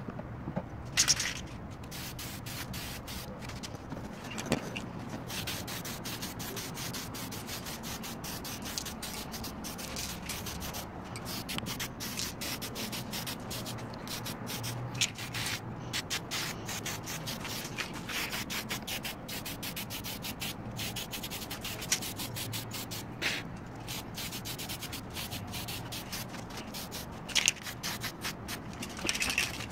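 Aerosol can of spray primer hissing in repeated short bursts with brief breaks, laying primer over the kit parts, mixed with a rough rubbing noise.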